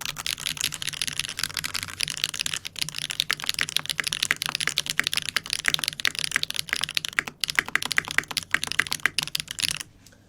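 Fast, continuous typing on a custom mechanical keyboard with a 1.5 mm brass plate, lubed switches and GMK keycaps: a steady stream of key strokes that stops near the end.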